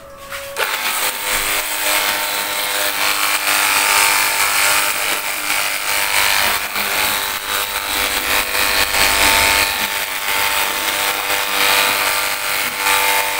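Cordless 24-volt pressure washer starting up about half a second in, then running steadily. Its small electric pump motor whines under the loud hiss of soapy water spraying from the foam-bottle nozzle onto the scooter's body.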